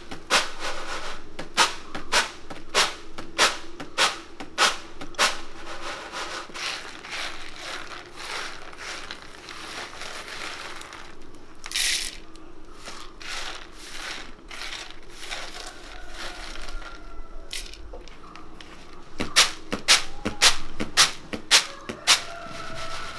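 Regular sharp knocks, about one every 0.6 seconds, in two runs, with rubbing and crackling between and a short hiss about twelve seconds in: dry ingredients being worked by hand.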